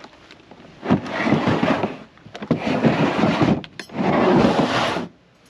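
Large hard plastic rifle case being slid across a pickup's tailgate and bed liner, making three long scraping pushes of about a second each.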